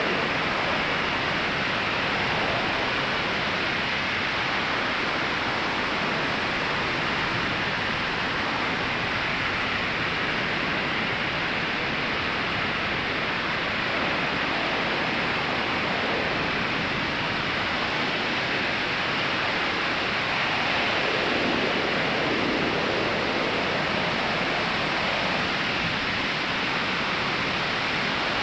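Ocean surf breaking on a sandy beach: a continuous wash of waves with one slightly fuller swell about three quarters of the way through.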